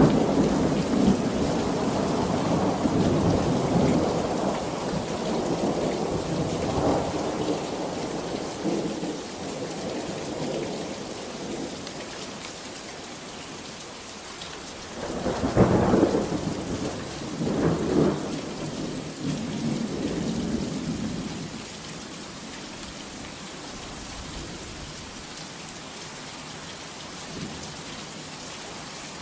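Steady heavy rain with thunder: a rumble rolling away over the first dozen seconds, then two thunderclaps about two seconds apart near the middle, the louder first, rumbling off and leaving only the rain.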